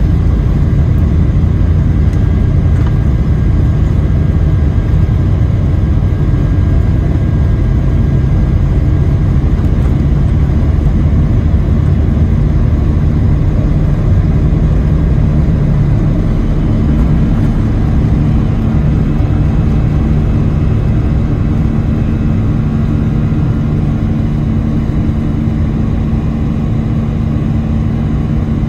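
Boeing 757-300 jet engines at takeoff thrust heard from inside the cabin, a loud steady roar with a deep rumble from the wheels rolling down the runway. The rumble eases slightly near the end as the airliner lifts off.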